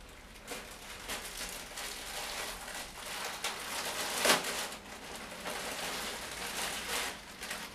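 Clear plastic packaging bag crinkling and rustling as it is handled and opened by hand, with one sharper crackle about four seconds in.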